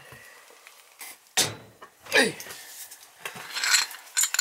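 Metal tool handling on a boiler's gas valve piping, with a pipe wrench being set on the valve: two sharp knocks about a second and a half and two seconds in, then lighter metallic clatter near the end.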